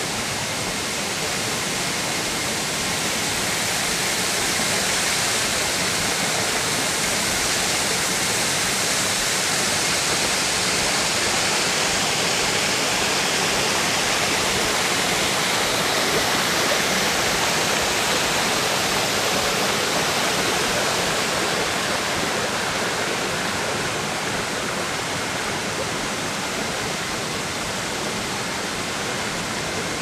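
Waterfall: a steady rush of many thin streams of water falling from a rock ledge onto the rocks below.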